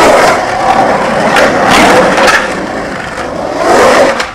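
Skateboard wheels rolling on the smooth walls of an empty swimming pool, a loud continuous rolling sound that swells and eases as the board carves up the wall and back down.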